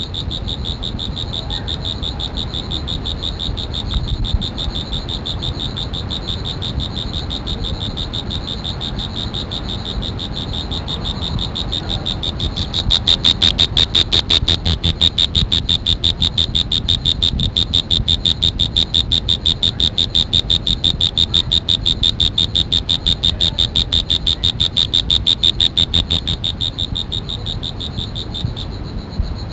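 High-pitched, rapidly pulsing insect trill. It grows louder about midway through and eases off again near the end.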